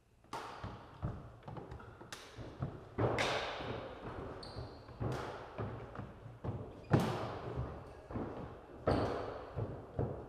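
Badminton rally: sharp echoing strikes of rackets on the shuttlecock, the strongest about every one to two seconds, with lighter knocks of footsteps on the wooden court floor and a few short high squeaks of shoes.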